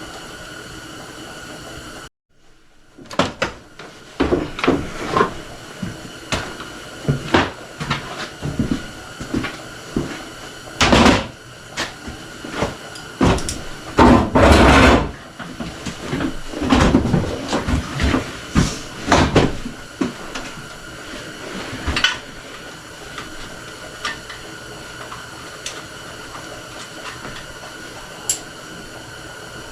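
Hand tools working on the valve adjusters of a Honda Fourtrax 300 single-cylinder engine: a 10 mm wrench and flathead screwdriver clicking and clinking irregularly as the valve clearance is set, with a longer scraping rattle about halfway through. A steady background hum runs underneath.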